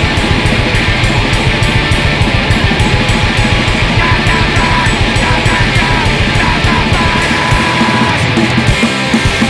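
Punk rock song played from a cassette tape: distorted electric guitars and drums over a fast, steady beat.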